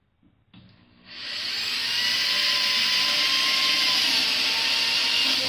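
Power drill running steadily as it bores pilot holes deeper into a wooden boat transom. It starts about a second in and winds down near the end.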